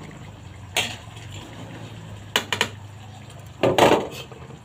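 A metal utensil clinking and clattering against a stainless steel pot: a clink about a second in, a quick double clink halfway through, and a louder clatter near the end, over a low steady hum.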